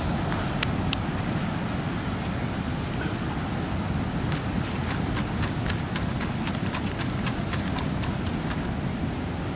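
Steady wind and surf noise with a scatter of small, sharp clicks that come more often from about halfway through.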